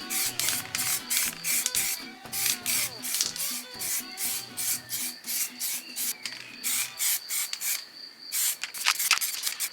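Rhythmic back-and-forth scrubbing strokes of an abrasive worked by hand, about two to three a second, with a short pause a little past the middle. Background music plays underneath.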